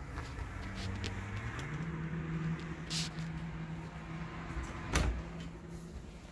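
A wardrobe door opening, with a sharp click about five seconds in, over a steady low hum that steps up in pitch about two seconds in.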